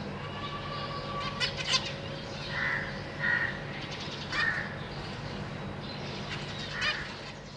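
Zebra finches calling: four short nasal calls spread through, with a couple of sharp chirps about a second and a half in, over a steady low hum.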